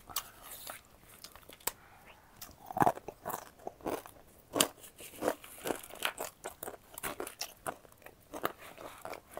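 A person chewing crunchy food in a series of irregular crunches, the loudest about three seconds in.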